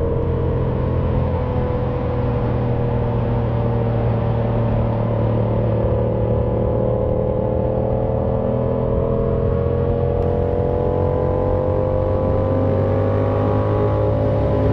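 Sport motorcycle engine running at road speed with wind and road noise. Its note sags slightly, then rises steadily through the second half as the bike accelerates.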